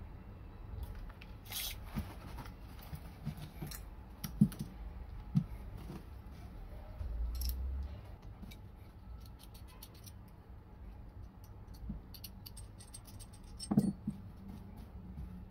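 Small metal parts handled by hand: scattered light clicks and taps as a split ring, a scope-ring mount and its screws are worked and set down, with a few sharper knocks along the way.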